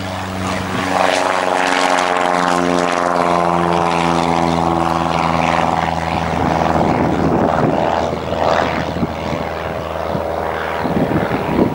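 Single-engine piston light aircraft at takeoff power, its engine and propeller drone passing close by. The pitch falls slowly, then the sound turns rougher and noisier as the plane climbs away.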